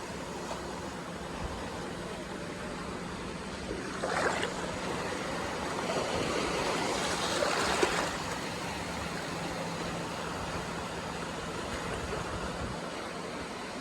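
Sea waves washing onto the shore: a steady wash of water with two louder surges, one about four seconds in and a longer one from about six to eight seconds in.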